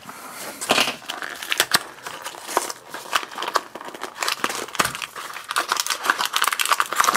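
Hands tearing open a small cardboard blind box and pulling out the foil bag inside: a run of crinkling, crackling and small tearing sounds.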